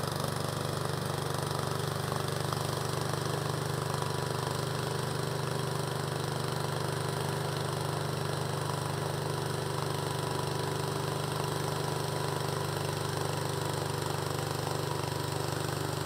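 Remote-control tracked slope mower's small gas engine running steadily as the mower climbs a steep slope at an angle: an even, low hum with no change in speed.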